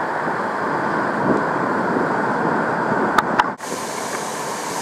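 Steady rush of hurricane-driven seawater and surf washing and foaming over the ground, with wind noise. Two sharp clicks come a little past three seconds in, then the sound breaks off briefly and goes on as a steady rush of breaking surf.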